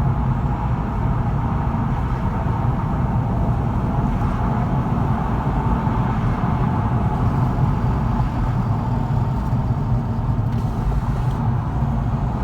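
50-series Toyota Prius being driven, with steady road and running noise and no clear changes.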